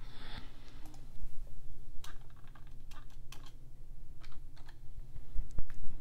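Irregular clicks and taps of typing on a computer keyboard, over a steady low hum.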